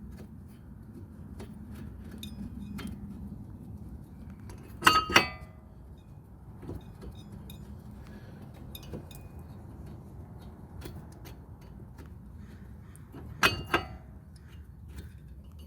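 Metal tools and brake hardware clinking as they are handled: a pair of sharp ringing clinks about five seconds in, another pair near the end, and small ticks between, over a steady low hum.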